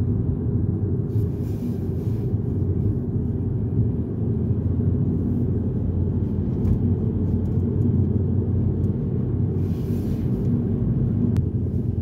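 Camper van on the move, heard from inside the cabin: a steady low engine and road rumble.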